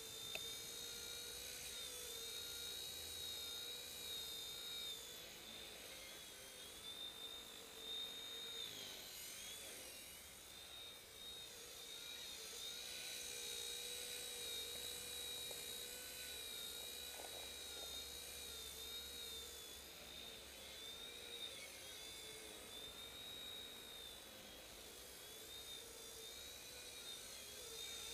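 Blade mCP X V1 micro collective-pitch RC helicopter flying: a thin, high electric whine from its motors and rotors that wavers up and down in pitch as it manoeuvres, with a deeper dip and glide about ten seconds in.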